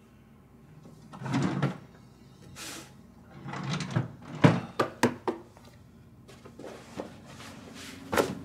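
Someone rummaging through a room for lost keys: several swishes of things being moved and handled, with a quick run of four sharp knocks and clacks about four to five seconds in, like drawers and furniture being shifted.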